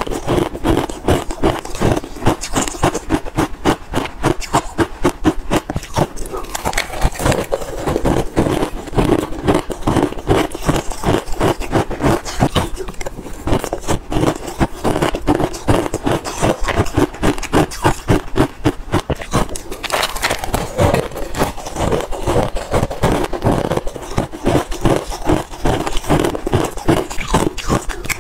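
Close-miked chewing of a mouthful of crushed pink ice, a steady stream of crisp crunches several a second.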